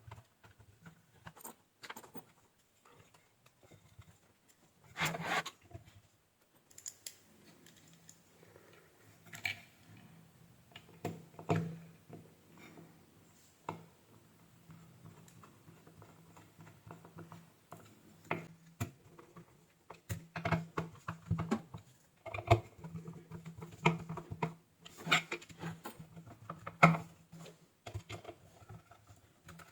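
Irregular small clicks, taps and rattles of tools and parts being handled on a workbench, busier in the second half, over a faint low steady hum.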